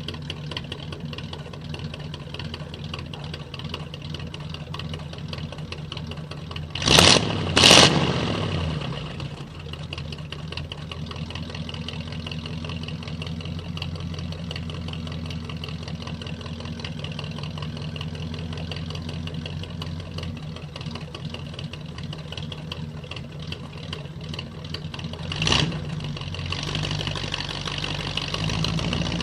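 1940 Ford Deluxe's flathead V8 engine idling steadily, with two short loud bursts about seven seconds in and a smaller one near 25 seconds. The engine grows louder near the end.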